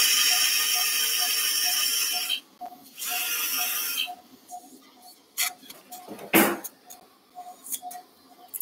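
Powered orthopaedic drill driving a fixation pin into bone, running steadily with a high whine. It stops about two and a half seconds in and runs again in a short burst about a second later. Scattered clicks and knocks of metal instruments follow, with a faint steady beep about two and a half times a second underneath.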